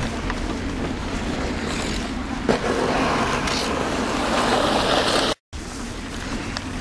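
Ice skate blades scraping and gliding on a frozen pond, a steady rush mixed with wind on the microphone, a little louder from about two and a half seconds in. The sound drops out completely for a split second a little after five seconds.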